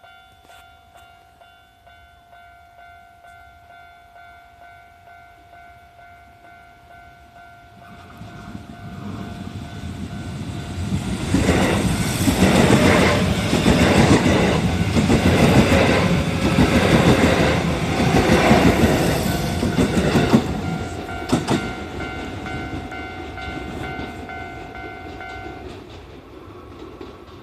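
A Japanese level-crossing alarm bell rings steadily while a Kintetsu 3220 series electric commuter train passes over the crossing. The train's rumble and wheel clatter build from about eight seconds in, are loudest for about nine seconds, then fade away. The crossing bell stops near the end.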